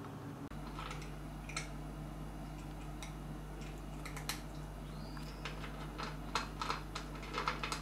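A cat eating dry kibble from a ceramic bowl: irregular small crisp crunches and clicks, coming more often in the second half, over a faint steady low hum.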